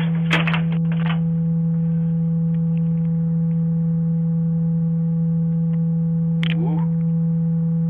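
Loud, steady electrical hum on a doorbell camera's audio: one unchanging low tone with faint overtones. A few small clicks come near the start, and a short rising chirp about six and a half seconds in.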